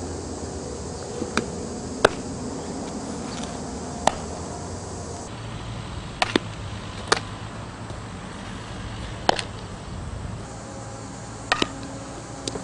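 About ten sharp knocks of a softball smacking into leather fielding gloves during pitching and infield practice, spaced one to two seconds apart, some in close pairs, the loudest about two seconds in. A steady outdoor hiss runs underneath.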